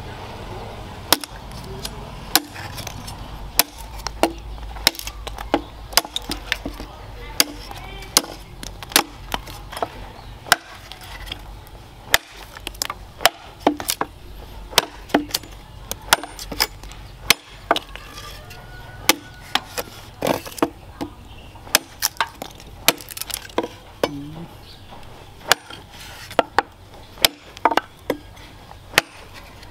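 Machete blade chopping into the edge of an upright wooden plank: repeated sharp chops, irregularly spaced at about one or two a second.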